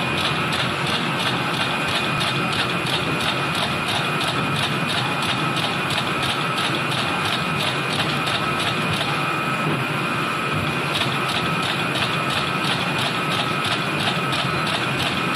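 Roll-fed label cutting machine running steadily, with an even mechanical ticking of about three a second over a constant whirr and a steady high whine as it cuts and stacks label strips.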